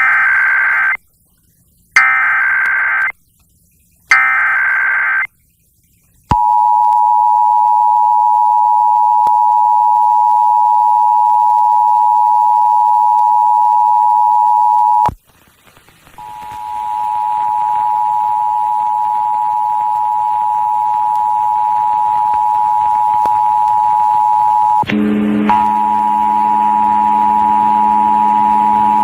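Emergency Alert System Required Monthly Test over FM radio. It opens with the SAME header data bursts, each about a second long with a second of silence between, then the steady two-tone EAS attention signal. The attention signal stops suddenly about fifteen seconds in and resumes a second later, and a lower steady tone joins underneath near the end.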